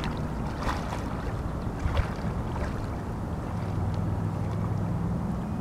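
A distant motor's steady low hum, growing a little stronger in the second half, under wind on the microphone, with a few faint clicks.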